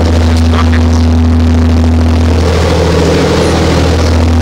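Fishing boat's engine running steadily, a loud constant low drone with a steady hum.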